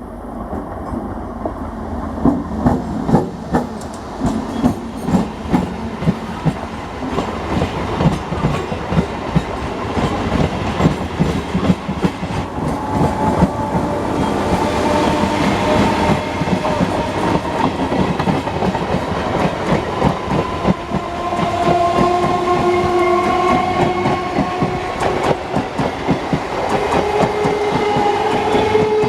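Electric multiple unit (EMU) local train running past at close range, its wheels clacking rapidly over rail joints and points. In the second half, steady high-pitched ringing tones come and go over the rumble.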